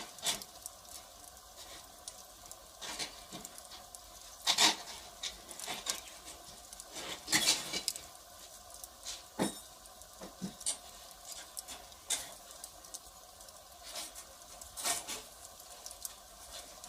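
Firewood fire burning, with irregular sharp crackles and pops from the wood over a faint low hiss; the loudest pops come about four and a half and seven and a half seconds in.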